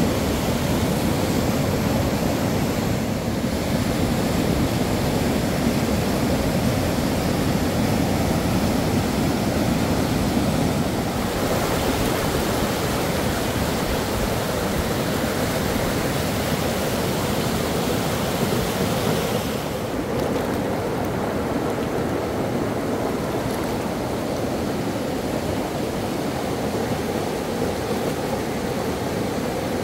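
Steady rush of water, an even noise with no break, whose tone shifts a little a few times, most clearly about two-thirds of the way in, where the high hiss drops.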